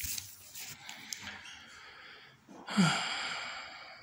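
Small 1000 kV brushless electric motor spinning a 9x5 propeller: a whirring whine with rushing air, throttled up sharply about two-thirds of the way in and then fading as it spins down.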